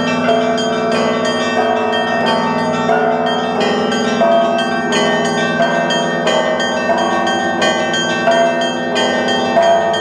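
A set of church bells of many sizes, hung in an open-air frame, rung by one ringer in the Russian manner. Quick, regular strikes of small bells chime over a lower bell's hum, the tones overlapping and ringing on.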